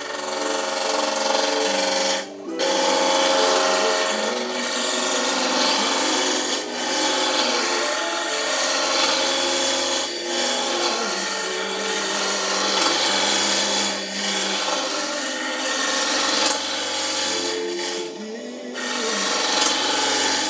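A wooden spindle turning on a wood lathe, with the tool or abrasive against the spinning leg making a steady scraping noise that breaks off briefly about two seconds in and again near the end. Background music plays underneath.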